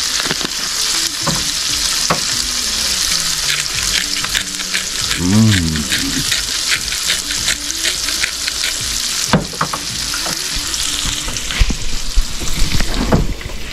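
Sliced green bell peppers sizzling in grease in an electric skillet, a steady frying hiss with many small crackling ticks. A short rising-and-falling hum about five seconds in, and a few low knocks near the end.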